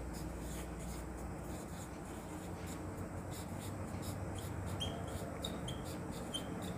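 Marker pen writing on a whiteboard: faint scratchy strokes, with a few short high squeaks in the second half.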